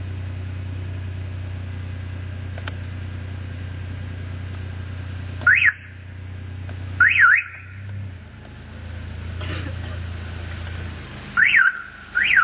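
Aftermarket car alarm siren wired into the flat-4 trailer wiring, set off by the brake-light or left turn-signal circuit, sounding four short bursts of fast up-and-down wails, two close together in the second half. Under the first part runs a steady low hum that drops away before the last two bursts.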